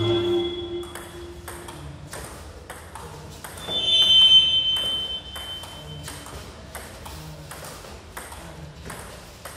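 Table tennis rally: the ball clicking back and forth off the paddles and the table, about two clicks a second. A loud, high squeak comes about four seconds in.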